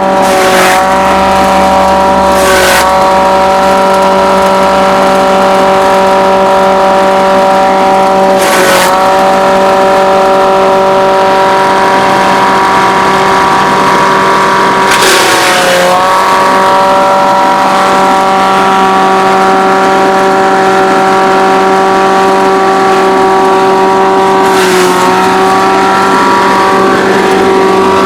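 Motor-driven chopper-shredder machine running at high speed with a steady whine. Four times its pitch sags briefly with a burst of hiss, as load comes on and it bogs down for a moment.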